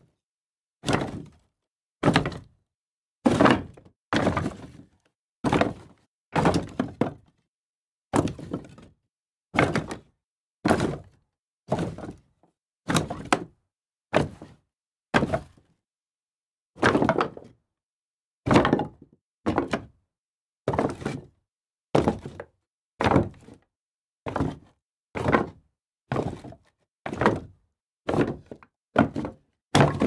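Pieces of wood tossed down one after another, about one a second, each landing with a short knock that dies away quickly; some give a quick second knock as they bounce.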